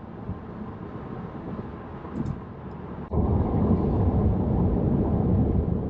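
Road and tyre noise inside a moving Tesla Model 3's cabin: a steady low rumble that abruptly jumps louder about three seconds in.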